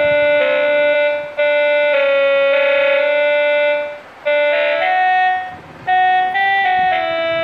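M-5486 budget electronic keyboard playing a slow melody of held notes, two at a time an octave apart, with a bright organ-like tone and brief breaks about four and five and a half seconds in.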